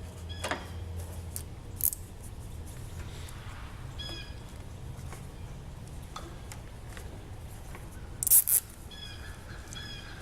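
A plastic wire tie being cinched tight, with two quick zipping rasps near the end and a short click about two seconds in. Birds chirp now and then in the background over a low steady hum.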